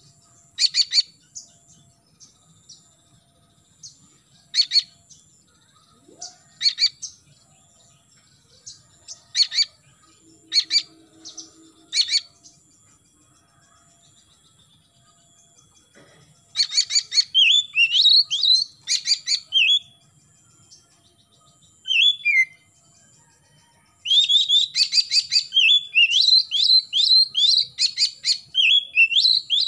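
Oriental magpie-robin singing: sharp, separate call notes every second or two, then after a short pause fast runs of rising and falling notes that build into continuous song near the end.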